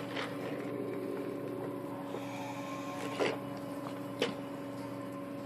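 Steady mechanical hum with several fixed tones in it, and a few short clicks, the clearest about three and four seconds in.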